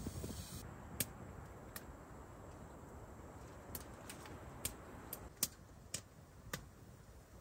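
Wood fire crackling in a tent stove: sharp single pops at uneven intervals, about one a second, over a faint low background hiss.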